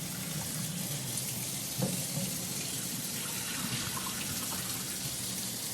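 Pineapple searing in a hot skillet, a steady sizzle.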